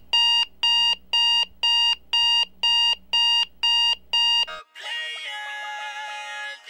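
Electronic alarm clock beeping in a steady pattern, nine high-pitched beeps about two a second, stopping suddenly about four and a half seconds in. Music follows for the last two seconds.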